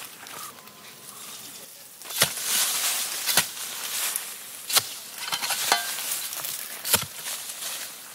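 A long-handled hoe chopping into an earth bank: four hard strikes at uneven intervals from about two seconds in, with another right at the end, each followed by the crumbly rustle of loose soil falling away.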